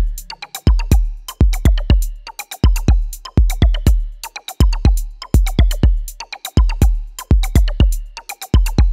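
Background music: an electronic drum-machine beat with deep bass kicks and sharp percussive hits in a steady, repeating pattern.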